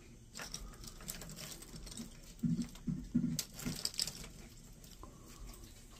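Faint handling noises of small electronic scrap on a cloth-covered workbench: scattered light clicks and rustles, with a few short, low, muffled sounds around the middle and a brief scrape just after.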